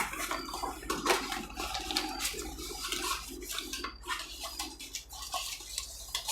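Plastic packaging being handled: irregular rustling and crinkling with small clicks.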